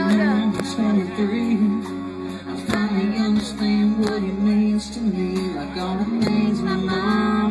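Live band music with guitars and drums, heard from the crowd through a large stage PA.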